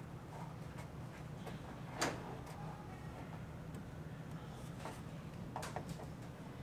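A few light clicks and taps of a small hand tool against a plastic bumper cover: a sharp one about two seconds in and a cluster near the end, over a low steady hum.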